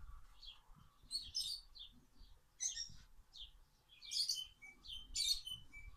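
Birds chirping in short, scattered high calls, in bunches every second or so.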